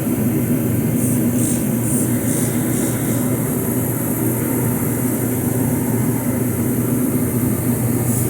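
Steady loud drone of a running shop heater. Over the first three seconds come several quick hissing squirts of a spray bottle, spaced about half a second apart, as Windex is sprayed on a tire to find a slow leak.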